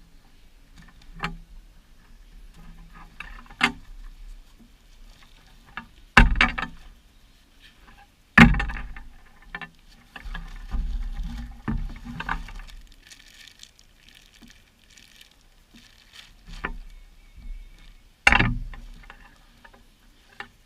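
Handling noises from a Kriega US-20 motorcycle drypack and its packaging being unpacked: irregular rustling and light knocks, with sharp thumps about six, eight and eighteen seconds in.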